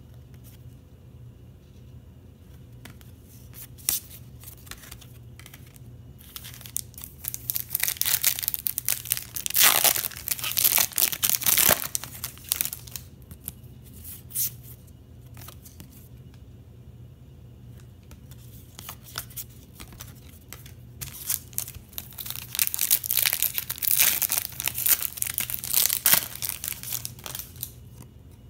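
Trading card pack wrappers being torn open and crinkled, in two long bouts of crackling, with quieter handling of cards in between.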